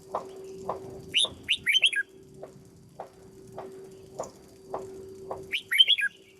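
Red-whiskered bulbul singing two short, quick phrases of sliding notes, about a second in and again near the end. Under it a steady ticking at about two a second and a low steady hum.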